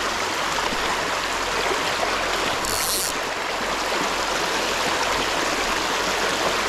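Shallow river riffle running over cobbles: a steady, even wash of rushing water. A brief high hiss cuts in a little under halfway through.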